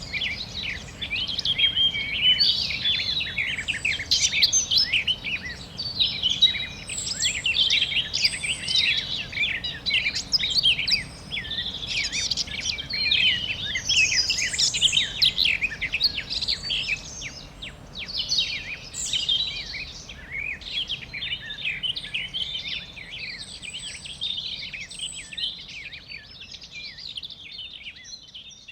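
Many small birds chirping at once, a dense chorus of quick, high chirps and trills over a faint steady background noise. The chorus thins out and grows quieter over the last several seconds.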